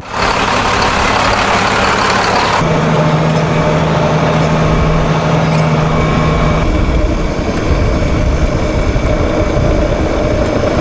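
Heavy diesel engine running loudly and steadily, with a low steady drone added for about four seconds in the middle.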